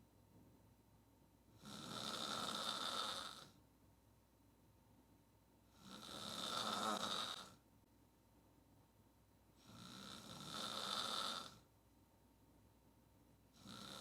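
A woman snoring hard with her mouth wide open while sleeping on her back. There is one snore about every four seconds, each lasting close to two seconds: three full snores, and a fourth starting at the very end.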